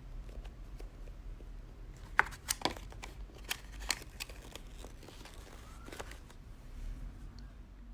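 Handling noises from a squishy toy: a cluster of sharp clicks and crinkles a couple of seconds in, a few more about six seconds in, over a low steady hum.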